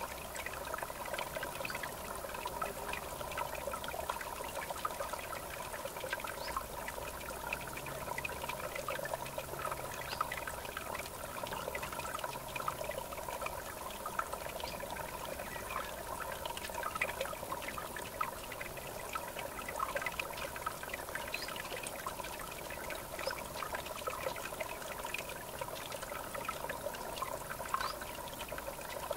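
River water trickling and gurgling steadily, with many small quick splashes.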